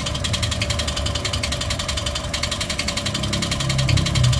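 Toyota 1NR-FE 1.3-litre four-cylinder engine running with a rapid, even ticking clatter over its hum, the abnormal engine noise under investigation. The engine grows louder near the end.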